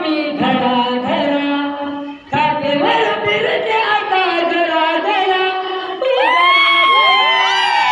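Singing of a folk dance song, the melody moving in sliding notes, with long curving glides near the end; it dips briefly about two seconds in.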